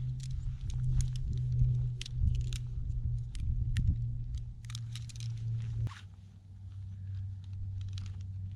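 Irregular crunching and rustling, many short crackles, over a steady low hum that drops slightly in pitch about six seconds in.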